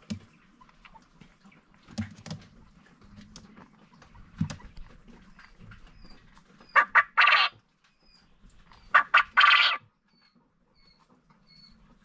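Male Japanese quail of the grey fee (pearl) colour crowing twice, about two seconds apart, each call a couple of sharp notes followed by a harsh rasping burst. A few light taps come before the calls, and faint short high peeps repeat in the background.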